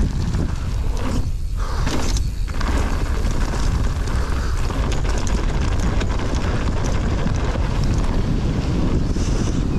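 Wind rushing over the camera microphone and mountain bike tyres rolling fast over a loose, rocky dirt trail, with a constant patter of small clicks from the gravel. The tyre noise briefly drops out twice, about one and two seconds in.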